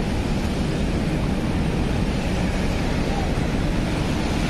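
Steady roar of a fast, rock-strewn mountain river rushing in whitewater close by.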